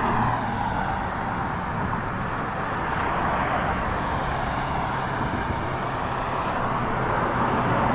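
Steady noise of road traffic, an even wash of tyres and engines with no single vehicle standing out.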